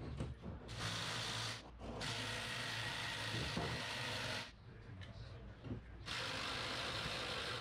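Power wrench running in three bursts, spinning out the 17 mm bolts of a VW Beetle chassis's rear torsion-bar caps, the longest burst in the middle lasting a little over two seconds.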